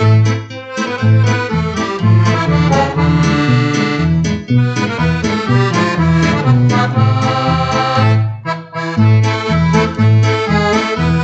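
Crucianelli wooden piano accordion playing a Spanish tuna song: a melody on the treble keys over bass notes that alternate on a steady beat, with a brief break in the phrase about eight seconds in.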